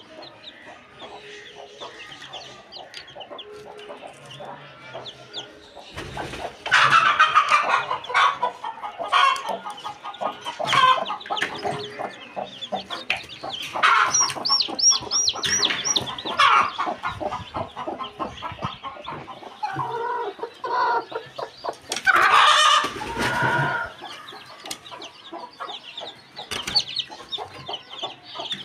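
Newly hatched chicks peeping in the nest while a broody hen clucks. Louder spells of calling come about seven seconds in and again around twenty-two seconds.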